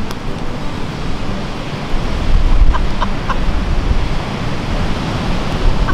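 Steady rushing noise of surf, with a low rumble of wind on the microphone. Two or three brief bird chirps come about three seconds in.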